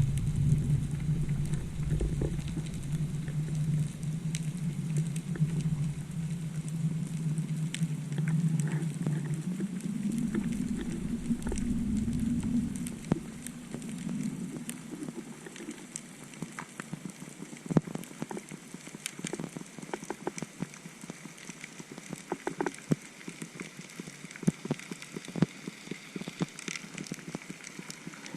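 Underwater ambient sound recorded through a camera housing. A steady low hum fades out about halfway through, and a dense, irregular crackle of sharp clicks runs under it and continues after it, typical of snapping shrimp on a reef.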